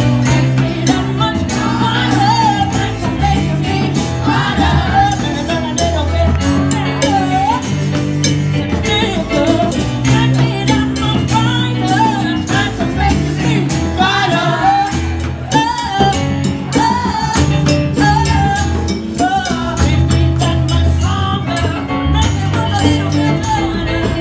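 Live band music with singing: a sung melody over keyboard, bongos and hand percussion.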